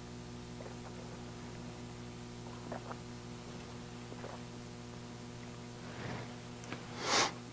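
Steady low electrical hum from a church sound system, with a few faint ticks. Near the end the man coughs once, briefly, into his hand.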